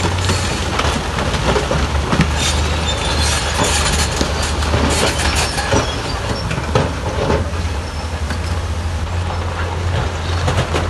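Heavy tipper dump truck's diesel engine running steadily as its hydraulic bed lifts a load of rock, with irregular clattering and scraping of stone and steel through the middle of the stretch.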